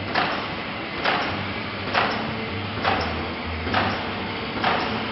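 Pouch-making machine running, with its pneumatic cutting and sealing head striking once roughly every second over a steady mechanical hum as it cuts off each pouch.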